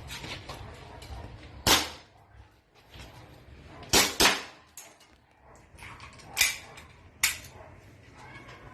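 Airsoft gas blowback pistol firing five sharp shots at an uneven pace, two in quick succession about four seconds in, with fainter clicks between them.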